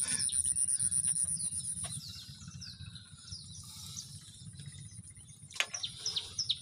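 Small birds calling in short, repeated downward-slurred chirps, over a steady high-pitched insect buzz and a low rumble that both cut off about two seconds in. A few sharp clicks come about five and a half seconds in.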